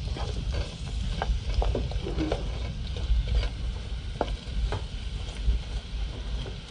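Sliced onion rings sizzling in hot oil in a frying pan while a wooden spoon stirs them, knocking and scraping against the pan at irregular moments, over a low rumble.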